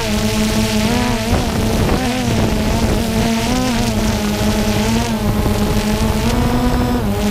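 DJI Phantom 2 quadcopter's motors and propellers buzzing steadily while it hovers, the pitch wavering up and down several times as the motor speeds adjust.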